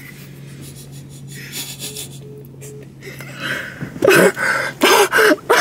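Stifled, breathy laughter, then loud bursts of laughing and shrieking from several young men about four seconds in.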